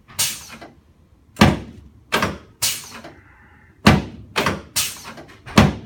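A series of sharp knocks, about eight unevenly spaced, from a chiropractic adjustment of the pelvis at the sacroiliac joints.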